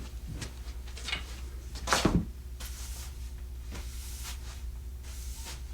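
Foley being performed in a studio: a couple of soft knocks, a louder thud about two seconds in, then faint rustling.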